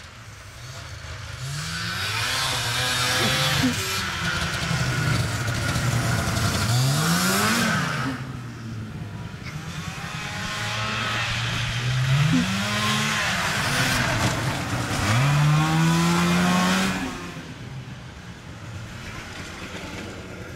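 Snowmobile engine revving up and easing off several times as the sled runs over the snow. Its pitch climbs and falls repeatedly and is loudest near the end, then drops away suddenly.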